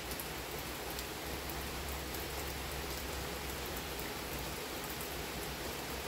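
Steady rain falling, an even hiss with a low rumble beneath it.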